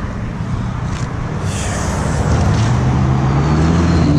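A motor vehicle's engine running, its pitch climbing slowly through the second half.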